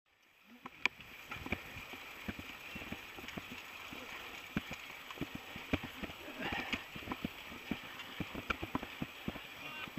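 Mountain bike rattling and knocking over rough sandy ground: irregular sharp clatters, a few a second, over a steady hiss.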